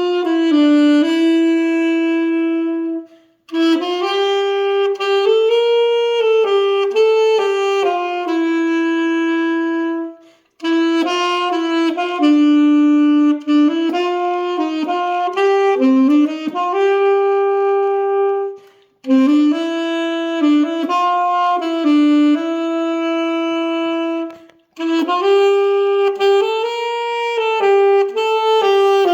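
Solo saxophone playing a slow melody in long phrases, with four short pauses for breath.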